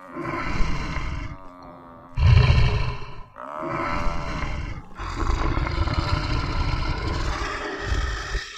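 Repeated loud animal roars in a fight between a lion and a Cape buffalo: four long calls with short breaks, the loudest just past two seconds in, the last one drawn out to near the end.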